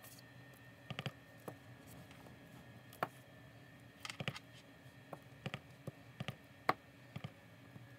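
Light taps and clicks of a clear acrylic stamp block being dabbed on an ink pad and pressed onto card stock, a dozen or so irregular strikes with a brief cluster about four seconds in and the loudest tap near two-thirds of the way through.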